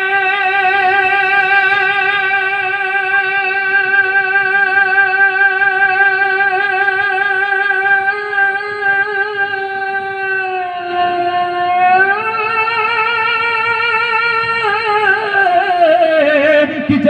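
A man singing a naat into a microphone, holding one long drawn-out note with a steady vibrato. About ten seconds in the pitch dips, rises again a second or so later, and then slides down near the end.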